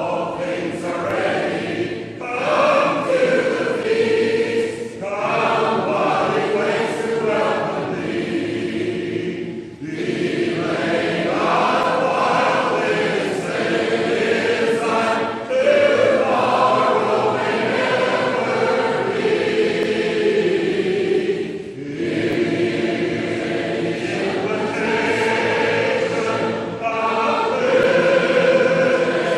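Church congregation singing a hymn a cappella in four-part harmony, phrase after phrase with short pauses between them.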